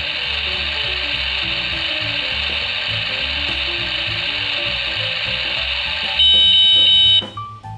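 Electronic frying sound from a toy kitchen stove: a steady sizzle that gives way about six seconds in to a loud, steady electronic beep lasting about a second.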